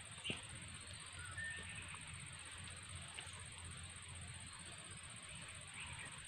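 Faint outdoor ambience: a steady thin high whine with a few short bird-like chirps. A single sharp click about a third of a second in comes as a hand works inside a plastic bait bucket.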